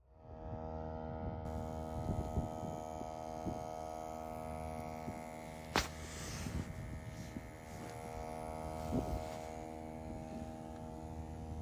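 Portable air compressor running with a steady buzzing hum, pumping the truck's tires back up after they were aired down for off-road driving. A sharp click sounds about six seconds in.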